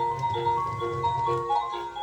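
Battery-powered octopus baby toy playing a simple electronic tune: a melody of short held beeping notes, like an ice-cream-van jingle.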